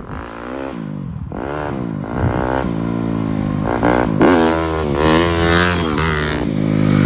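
Yamaha YZ250F four-stroke single-cylinder dirt bike engine, its revs rising and falling again and again as it is throttled up the road, then held high and steady near the end as it wheelies past.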